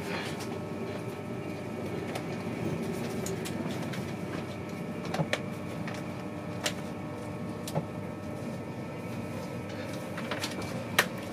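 InterCity 225 train running, heard from inside one of its Mark 4 coaches: a steady rumble and rush of the train in motion, with four short sharp clicks.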